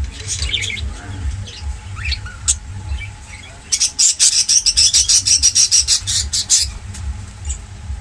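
Small caged parrots calling: scattered high chirps, then about halfway through a loud, rapid run of shrill squawks, about ten a second, lasting roughly three seconds.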